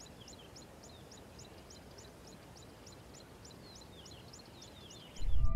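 Faint bird calls: a fast, even series of short high chirps, about three a second, with clusters of falling notes, over faint low background noise. Loud music with long held tones cuts in near the end.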